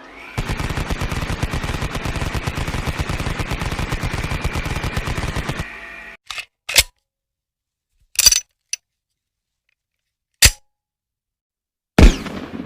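Gunfire sound effect: a rapid burst of automatic fire lasting about five seconds, then a few single shots spaced over the following six seconds, the last one ringing out in a long echo.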